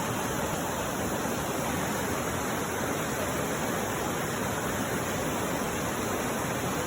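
River water rushing, a steady, even hiss.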